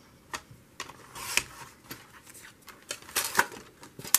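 Paper and craft materials being handled on a tabletop: brief rustles of paper with a few light clicks and taps.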